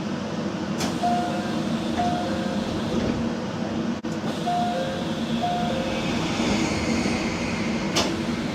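Door chime of a later-build JR Central 313 series electric train: short high and low chime notes sounding twice about a second in and again around four to six seconds in, with the sliding doors working. A hiss runs through the second half and a sharp clunk comes near the end, over the steady hum of the train.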